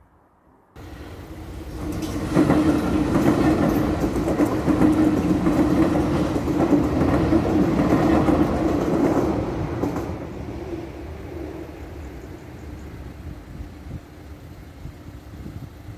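A green DART electric commuter train passing over a road level crossing. It builds over the first couple of seconds, is loudest for about seven seconds with a steady hum, then fades as the train moves away.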